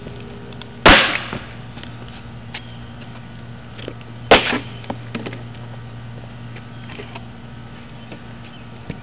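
Two hard stomps on a Rodney Mullen Uberlight skateboard deck wedged against a concrete curb, each a loud, sharp smack of wood that dies away quickly. The first comes about a second in and the second about three seconds later, followed by a few lighter knocks.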